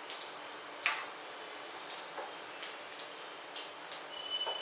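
Mustard and cumin seeds spluttering in hot oil for a tadka (tempering): about ten sharp, irregular pops over a faint hiss.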